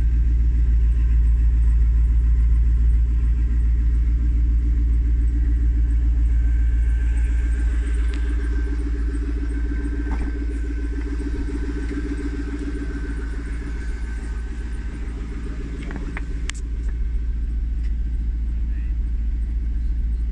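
Supercharged 4.0-litre V8 of a 1999 Jaguar XKR idling steadily, first heard at the tailpipes and a little softer after several seconds. A few sharp clicks come about sixteen seconds in.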